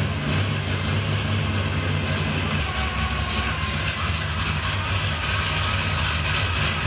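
1971 Chevrolet Chevelle's V8 idling steadily on its newly fitted Edelbrock Performer intake and Edelbrock carburetor, during its first warm-up run.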